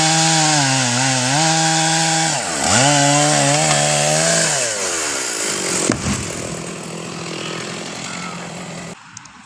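Two-stroke chainsaw revving hard in two long bursts, its pitch sagging and recovering as it cuts, then falling away after about five seconds; a sharp crack about six seconds in.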